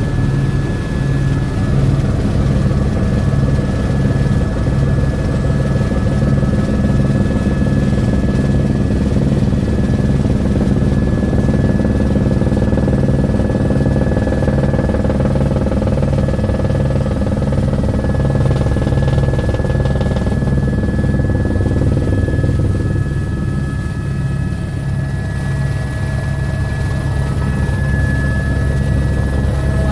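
Helicopter in flight heard from inside the cabin: a steady engine drone with the regular beat of the rotor and a thin, steady high whine, easing slightly about two-thirds of the way through.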